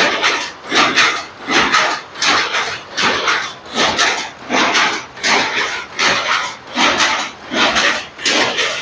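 A steady rhythm of rasping, scraping strokes, about three every two seconds, each a short burst of scraping noise.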